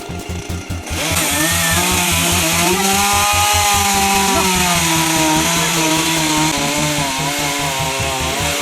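Two-stroke chainsaw going to full throttle about a second in and running hard, as when cutting wood, its pitch rising a little and then slowly sagging; it drops back off full throttle right at the end.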